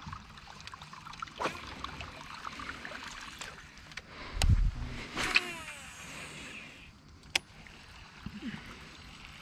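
Handling noise on a small fishing boat while a topwater lure is reeled in: scattered sharp clicks and knocks, with one heavy low thump on the boat about halfway through, followed at once by a brief falling squeal.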